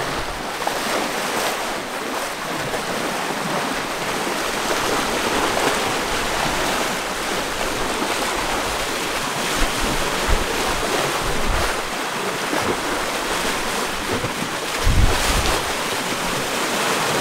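Water rushing and splashing along the hulls of a sailing catamaran moving through choppy sea, with wind buffeting the microphone in a few low thumps, strongest about fifteen seconds in.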